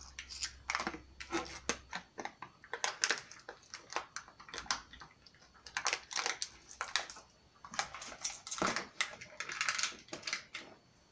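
Stack of engine main bearing shells being handled and sorted by hand, the thin metal shells clicking and clinking against one another in quick irregular bursts.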